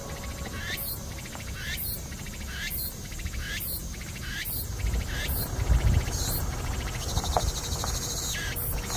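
An insect calling in a regular series of high, rising buzzy chirps, about one a second, over a low rumble of wind noise.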